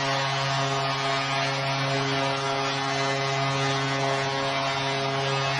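Steady hockey-arena crowd noise under a constant low hum, with no change in level.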